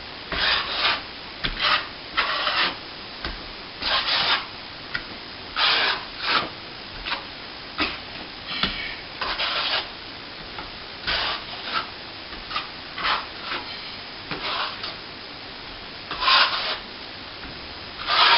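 Plastering trowel drawn across wet plaster on plasterboard, floating a thin coat over a backblocked patch: a run of short, irregular scraping strokes, roughly one a second.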